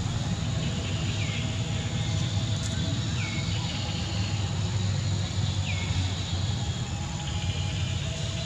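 Outdoor ambience: a steady low rumble under a steady high-pitched whine, with a few short falling chirps about two seconds apart.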